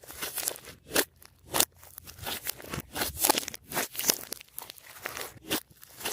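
Glossy slime being squished and stretched by hand, giving an irregular run of sticky, wet clicks and crackling pops.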